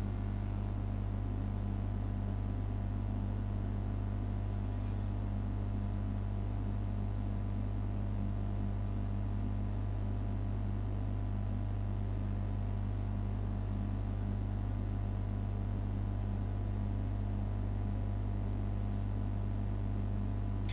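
A steady low hum with a faint hiss over it, unchanging throughout: the recording's background noise while nothing else happens, with one faint brief high tick about four and a half seconds in.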